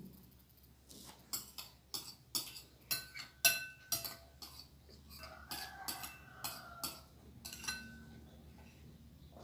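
Metal spoon and fork clinking and scraping against bowls while eating: a run of sharp, briefly ringing clinks, several a second at first and thinning out, with a stretch of scraping about halfway through.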